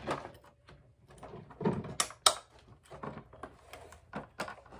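Plastic clips snapping and 3D-printed armor pieces knocking together as the front and back halves of a chest piece are pressed and clipped into place. Two sharp clicks about two seconds in are the loudest sounds.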